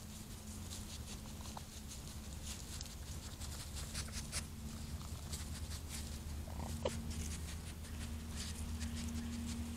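Faint night ambience: a steady low hum under scattered soft clicks and rustles, with one short falling chirp about seven seconds in.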